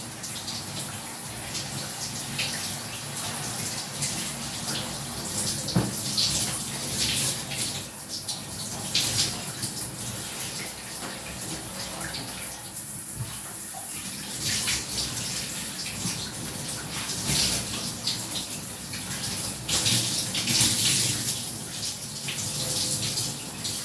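Water spraying from a showerhead and splashing, a steady running hiss that swells and eases every few seconds. There is a single light knock about six seconds in.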